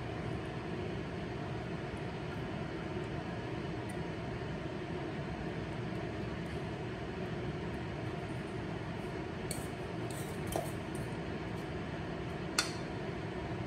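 A steady low rushing noise, with a few light taps of a metal fork against a nonstick frying pan as it spreads potato batter, and one sharp clink about a second before the end.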